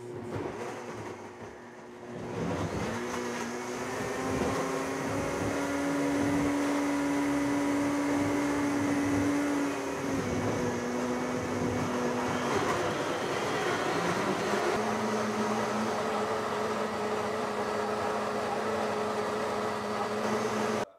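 Blendtec high-speed blenders running and liquefying green juice ingredients: a steady motor whine with the churn of the jars. It starts lower, rises to full speed about two seconds in, shifts pitch a few times in the middle, and cuts off sharply at the end.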